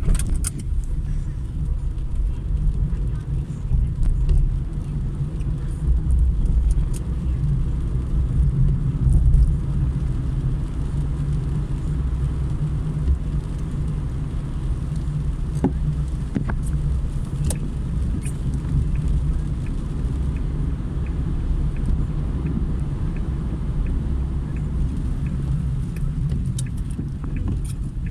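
Car driving on a rain-wet road: a steady low rumble of engine and tyres, with scattered light ticks throughout.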